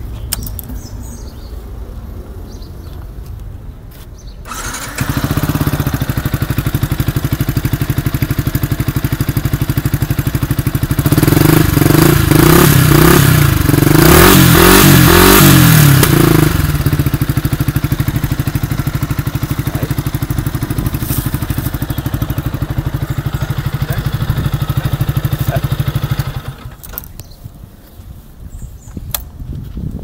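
Yamaha YZF-R125's 125 cc single-cylinder four-stroke engine breathing through a Mivv GP aftermarket exhaust: it starts about five seconds in and idles steadily. Midway it is revved in a series of throttle blips for several seconds, then drops back to idle and is switched off a few seconds before the end.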